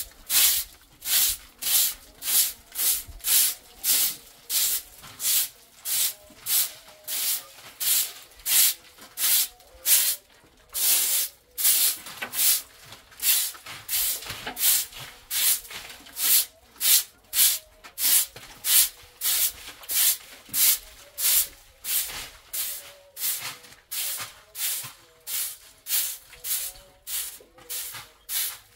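Short straw hand broom sweeping a cement floor in quick brisk strokes, about two swishes a second.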